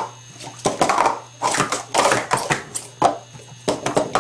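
Plastic sport-stacking cups clattering in quick runs of sharp taps as they are stacked up and brought down at speed during a timed cycle.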